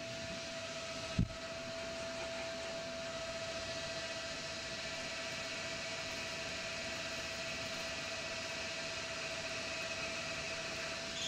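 Tormach Slant-Pro CNC lathe spindle running with a steady whine while a turning tool takes a light test cut on the part. A brief low thump about a second in.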